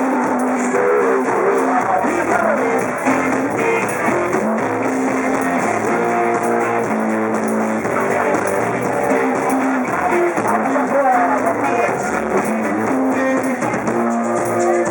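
Live rock band playing, with strummed guitars and held melodic notes.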